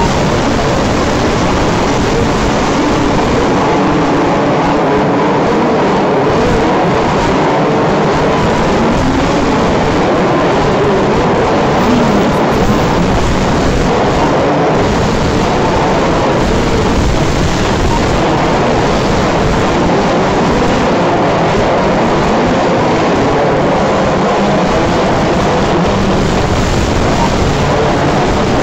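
Several radio-controlled 4WD off-road buggies racing on a dirt track, their motors continually rising and falling in pitch as they accelerate and brake around the corners.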